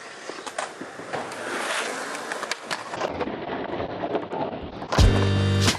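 Skateboard wheels rolling on concrete, with sharp clacks of the board popping and landing during a trick. Music comes in loudly near the end.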